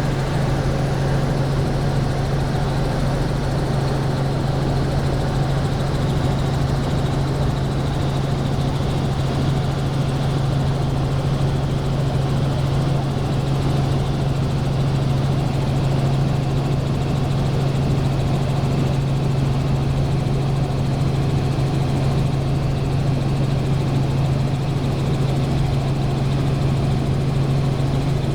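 Helicopter in flight: steady engine and rotor drone with a strong low hum, unchanging throughout.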